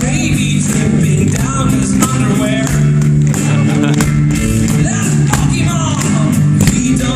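Live rock band playing, with guitar, sustained bass notes and a steady drumbeat, and short bits of a singer's voice over it.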